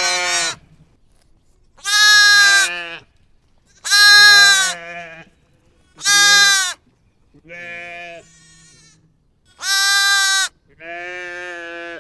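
Sheep bleating repeatedly: about seven drawn-out, wavering bleats, one every second and a half to two seconds, two of them fainter than the rest.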